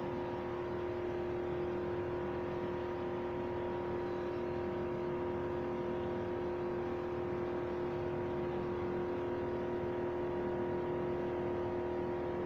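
A steady machine hum at one fixed pitch, unchanging throughout.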